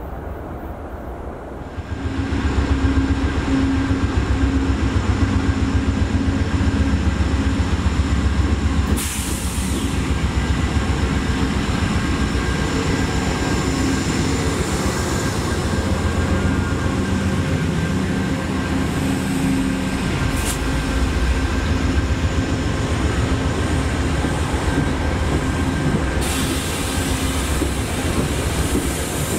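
Amtrak GE Genesis P42DC diesel locomotive running close by, a loud, steady engine drone with a constant low hum. It starts about two seconds in, after a quieter stretch of outdoor background.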